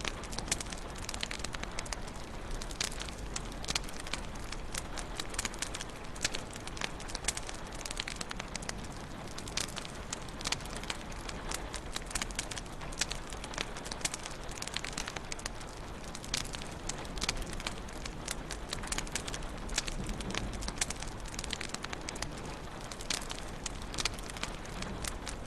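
Wood fire crackling in a fireplace: a steady low rush of flame with dense, irregular small pops and snaps.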